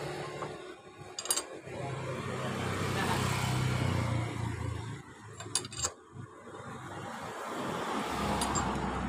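Low rumble of passing road traffic, swelling and fading twice, with a few sharp metal clinks from a wrench at the motorcycle's crankcase.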